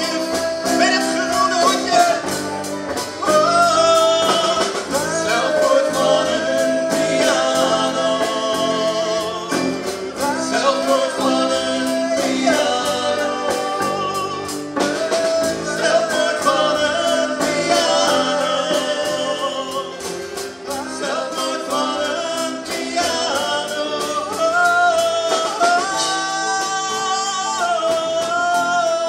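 Live band performing a song: a lead vocalist singing long held notes over keyboard, electric and acoustic guitars and a drum kit keeping a steady beat.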